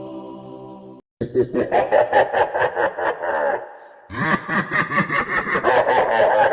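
A sustained choir chord fades out in the first second; then, after a short gap, hearty laughter sets in as a stock sound effect, in rapid repeated bursts: a long bout, a brief breath, and a second bout.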